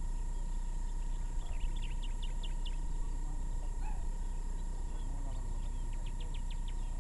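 Outdoor ambience: a steady low rumble of wind on the microphone under a faint steady whine, with two short runs of quick, faint high chirps, one about two seconds in and one near the end.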